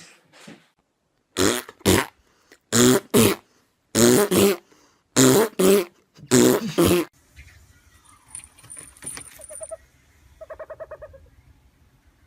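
An animal calling: five loud, rough double calls at an even pace, then fainter sounds with a short rapid trill near the end.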